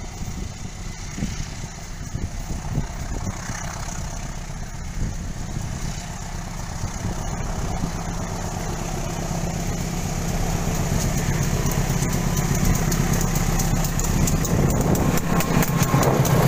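CC 201 diesel-electric locomotive (GE U18C) approaching with its diesel engine running, growing steadily louder. Near the end it passes close, and a rapid clatter joins the engine.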